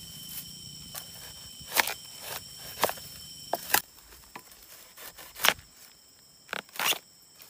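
Irregular sharp snaps and crunches from a slotted bamboo pole worked against the flower bunches at the base of a young oil palm, breaking them off (castration). A steady high insect drone runs underneath.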